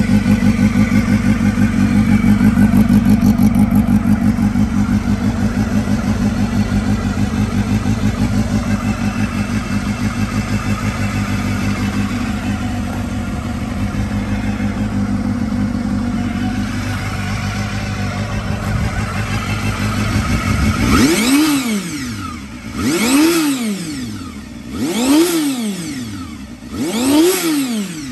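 A 1996 Honda Hornet 250's water-cooled four-stroke four-cylinder engine, stock exhaust, idling steadily in good running order. Near the end it is revved four times, about two seconds apart, the pitch rising and falling quickly each time.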